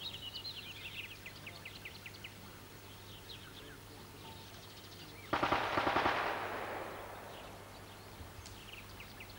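Songbirds chirping, then about five seconds in a single burst of automatic gunfire: rapid shots for about a second, followed by an echoing tail that dies away.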